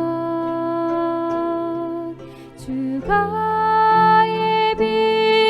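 Slow hymn music from a 25-string gayageum arrangement with a sustained accompaniment. Long held notes change to a higher chord about three seconds in.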